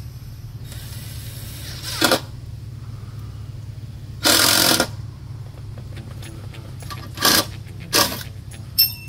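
Cordless drill-driver driving 6-inch screws through a 4x4 porch post into the framing, in four short bursts, the second the longest at about half a second, with a sharp click near the end. A steady low hum runs underneath.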